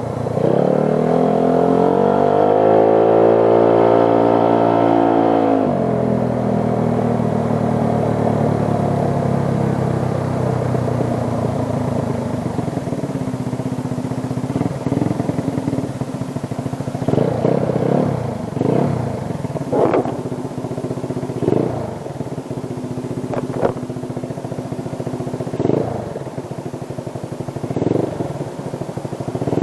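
Motorcycle engine running on the move: it climbs in pitch over the first few seconds, holds, then drops off about five seconds in, and keeps running over steady road noise. Several short, sharp sounds come in the later part.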